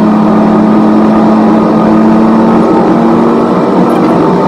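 A car cruising at highway speed, heard from inside the cabin: a steady engine drone with a low hum over road noise.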